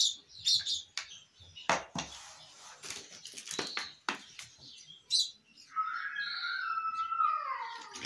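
Short high bird chirps, then the clicking and clinking of a metal spoon in a small plastic dish and the handling of a plastic water bottle. Near the end comes a drawn-out tone that slowly falls in pitch.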